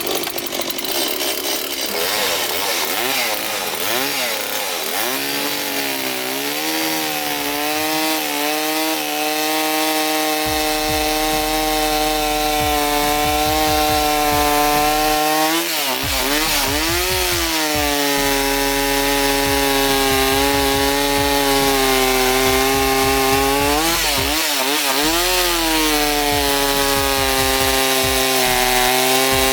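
Rebuilt Husqvarna 372XP two-stroke chainsaw running at high revs while cutting wood, its pitch sagging and recovering twice, about halfway through and again near the end. The owner suspects the saw is running on the lean side on the high-speed screw.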